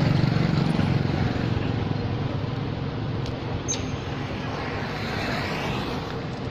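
A motor vehicle engine running over a wash of outdoor noise, loudest at the start and fading away.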